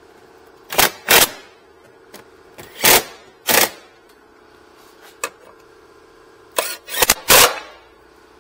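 Cordless power driver spinning the wheel-arch liner screws in short whirs, about seven in three groups, each lasting a fraction of a second. A faint steady hum runs underneath.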